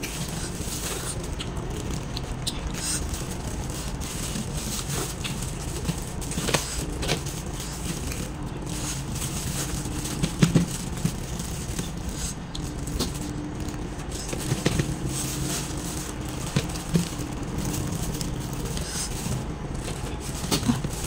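Eating fish and rice by hand in a plastic glove: the glove crinkles and fingers scrape and tap against a stainless steel tray, with scattered small clicks, over a steady low hum.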